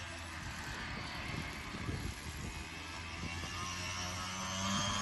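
Petrol engine of a radio-controlled model boat running at speed, a steady buzzing note that gets louder near the end.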